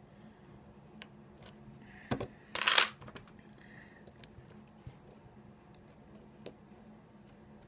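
Lock picks working the security pins of an ASSA 700 lock cylinder, with scattered small metallic clicks and ticks. About two and a half seconds in there is a knock, then a brief, louder metal clatter.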